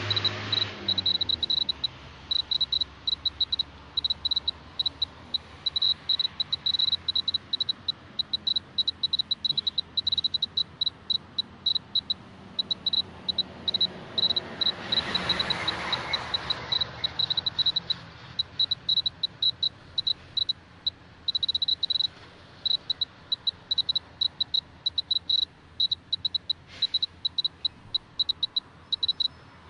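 Clear-Pulse Mr. Gamma A2700 radiation dosimeter's buzzer chirping in short high beeps at irregular, random intervals, sometimes in quick clusters: each beep marks a detected gamma count at a background level of about 0.1 µSv/h. A broad rush of noise swells and fades about halfway through.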